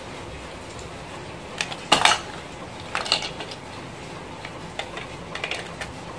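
Hard plastic and metal parts clicking and clattering as they are handled, with a sharp knock about two seconds in and a few more clicks about a second later.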